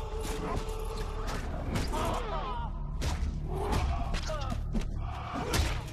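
Film fight sound effects: a flurry of sharp hits and thuds, with men yelling and groaning over a low rumble.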